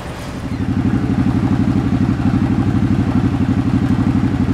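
A motor vehicle's engine running at a steady, fast-pulsing idle, growing louder about half a second in and then holding.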